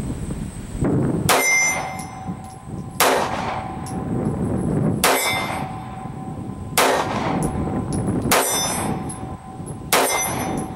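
Colt Mustang PocketLite .380 Auto pocket pistol fired six times, a shot every second and a half to two seconds, each crack followed by a brief metallic ring.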